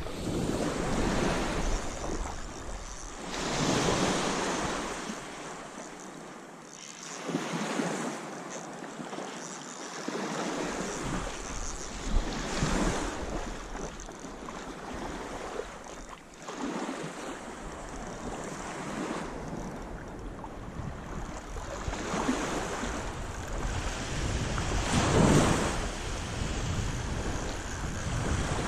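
Waves washing onto the beach, swelling and fading every few seconds, with wind buffeting the microphone.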